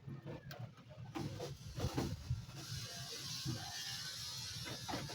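Light, irregular clicks and knocks of small parts being handled and held in place against a car door. A soft scratching hiss comes in at about two and a half seconds.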